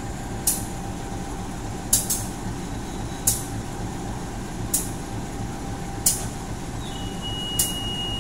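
KAI CC 204 (GE C20EMP) diesel-electric locomotive idling at a standstill, a steady low rumble. Sharp short clicks come about every one and a half seconds, and a faint high steady tone comes in near the end.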